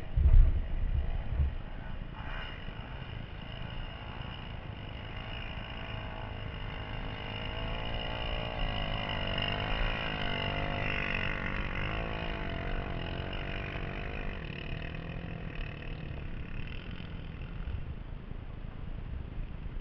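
A dirt bike riding past on the sand trail, its engine revving up and down, building to loudest around the middle and fading away. A short low thump on the microphone at the very start.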